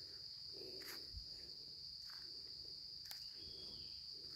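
Insects droning steadily at a high pitch, with a few faint clicks and scuffs of footsteps on a dirt path.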